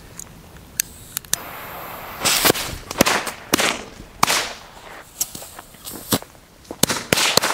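Old Feistel jumping jack firecracker (Knallfrosch) going off. An irregular string of a dozen or so sharp bangs with fizzing between them starts about two seconds in.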